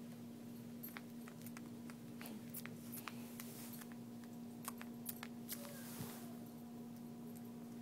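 Scattered soft clicks and smacks of a two-week-old puppy's mouth as it roots and sucks at fingers looking for milk, over a steady low hum.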